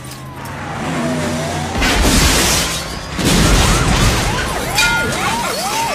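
Film action sound effects: a siren tone sliding down, then two loud blasts about a second and a half apart as a rocket launcher fires at a police car. A police siren follows, swooping quickly up and down, with tyre noise.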